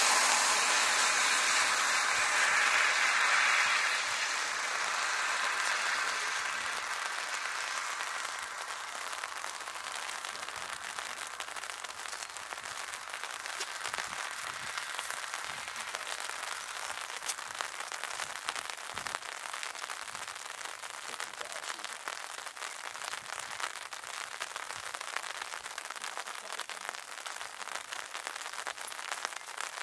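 Jet engine roar fading away over the first several seconds, giving way to a steady crackling patter of rain.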